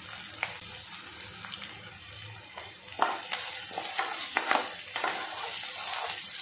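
Sliced onions, green chillies and curry leaves sizzling in hot oil in a non-stick wok. A steel ladle stirs them, scraping and clicking against the pan, more often from about three seconds in.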